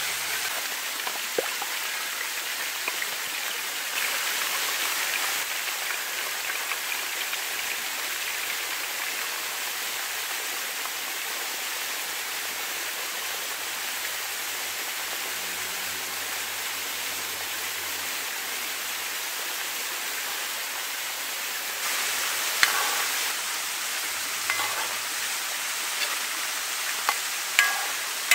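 Hot oil sizzling steadily in a cast-iron pan as chunks of beef deep-fry, the sizzle swelling briefly about four seconds in and again past twenty seconds. Near the end a metal skimmer clicks a few times against the pan.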